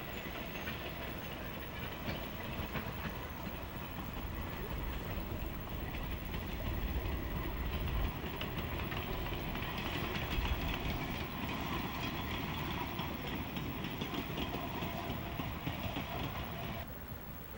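Small freight train of an ED20 electric locomotive and wooden goods wagons passing, the wheels clicking and clattering over the rail joints; it grows louder to about halfway, then eases, and cuts off abruptly near the end.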